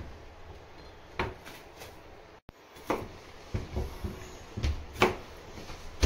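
Irregular knocks, about six of them, as a kitchen knife and a cucumber are handled and set down on a plastic cutting board.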